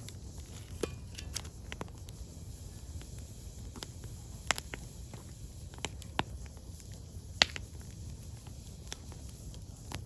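Firewood burning in a wood fire, crackling with irregular sharp pops over a low steady rumble; the loudest pop comes about seven seconds in.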